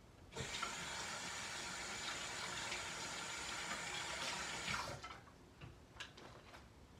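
Kitchen tap running into the sink for about four and a half seconds, then shut off, followed by a few light clicks and knocks.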